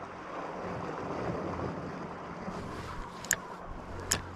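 Steady wind and gentle sea noise on the microphone, broken by two sharp clicks from the angler's gear, a bit over three and about four seconds in.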